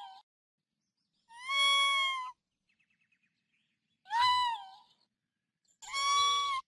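A small mammal's high, whining calls: the tail of one cry, then three drawn-out cries of under a second each, spaced about two seconds apart. Each holds one pitch that bends slightly at its ends.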